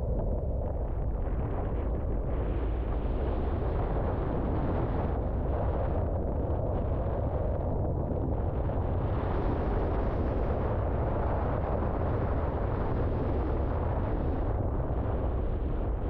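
River water rushing steadily, a continuous deep rumble with a hiss of water above it.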